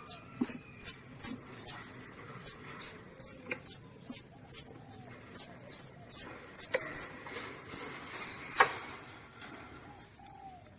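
Young Asian palm civet (luwak) calling: a rapid, regular series of short, high squeaks, each dropping in pitch, about two or three a second, stopping about nine seconds in.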